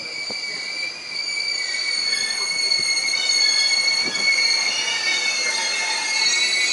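JR East 651 series limited express train pulling into the platform and slowing, its brakes squealing in several high steady tones. It grows louder as the cars come alongside.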